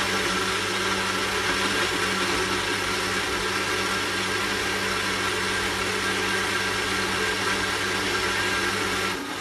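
Electric kitchen blender running steadily at speed, blending a banana smoothie, and switched off right at the end.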